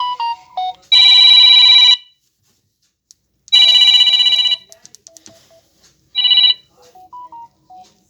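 Samsung Galaxy A12 ringtone playing: three loud fluttering rings, the first two about a second long and the third shorter, with soft short melodic notes before and between them.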